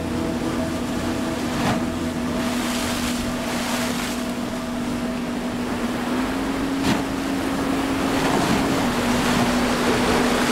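Motorboat running fast over a choppy sea: a steady engine drone over rushing water and wind, with two sharp knocks, about 2 s and 7 s in. The engine pitch rises slightly a little past halfway.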